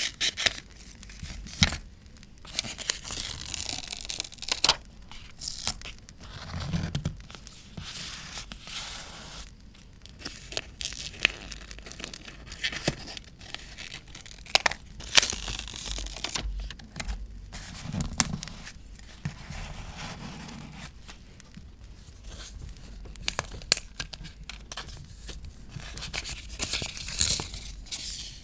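Paper being torn and handled in stretches, crinkling, with sharp crackling clicks scattered throughout and a couple of soft low thumps.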